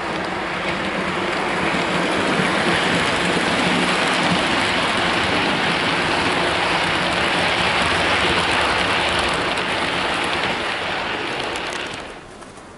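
Model train running past close by: a steady rushing rumble of the wheels on the track, building up as it nears, then dropping away sharply near the end.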